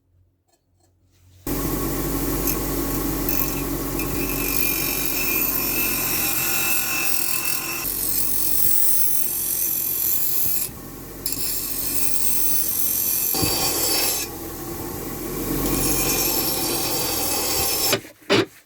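Electric power tool running under load on the workpiece: a continuous rasping, grinding noise over a steady motor hum. It starts about a second and a half in, eases off briefly twice, and stops shortly before the end.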